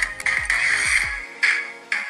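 Electronic music with a deep kick-drum beat, played through a homemade TDA2030 bridge audio amplifier during its test. The bass drops out a little past halfway.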